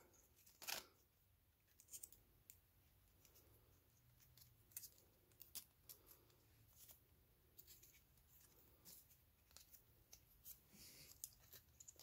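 Faint handling noise: light, scattered clicks and rustles of a woven elastic watch strap and its metal buckle being worked around a steel watch case by hand.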